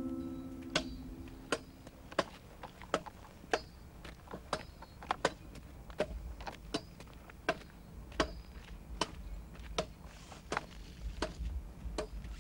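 Footsteps of several people walking through dry scrub: sharp, irregular snaps and cracks of twigs and brush underfoot, about two a second, over a low wind rumble. A plucked guitar chord dies away at the start.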